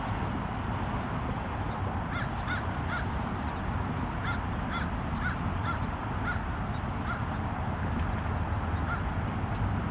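A bird calling a series of short, clipped notes, about a dozen over several seconds, thinning out near the end, over a steady low background rumble.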